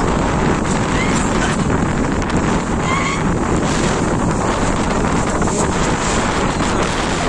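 Strong wind buffeting the microphone, over choppy floodwater washing against the bank.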